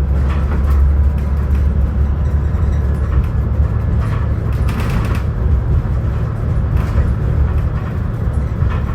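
Steady low rumble of a moving vehicle, with a few brief rattles or bumps.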